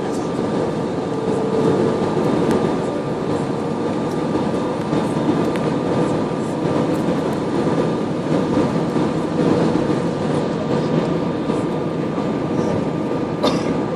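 Steady cabin roar of an easyJet airliner on approach: jet engine and airflow noise with a faint steady hum.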